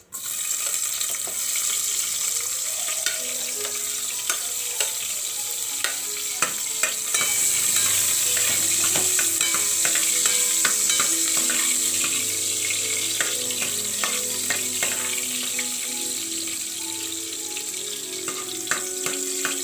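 Sliced onion sizzling as it fries in hot cooking oil in an aluminium pot, the sizzle starting suddenly as the onion goes in. A metal spoon clicks and scrapes against the pot as the onion is stirred.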